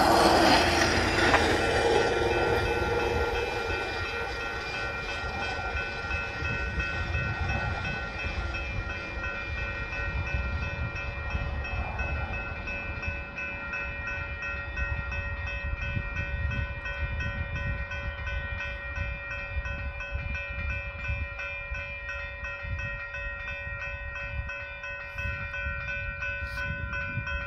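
General Signals Type 3 electronic crossing bell ringing steadily with a fast, even repeat. It cuts off near the end. In the first couple of seconds a hi-rail pickup truck passes over the tracks and is louder than the bell.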